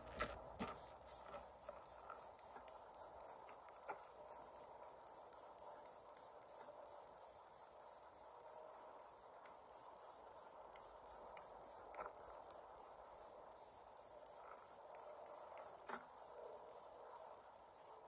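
Insects chirping faintly in a fast, even, high-pitched pulse, about three chirps a second, with a few soft clicks.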